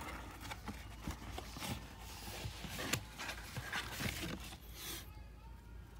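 Handling noise: irregular scrapes, clicks and knocks of a plastic reptile tub and the phone being moved about, dying away about five seconds in.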